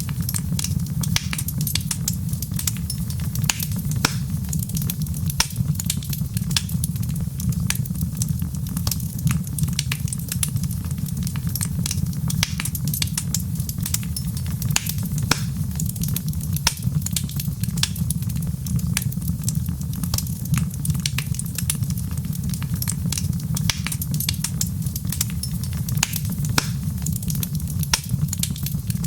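Wood fire crackling and popping steadily, with irregular sharp pops over a constant low rumble.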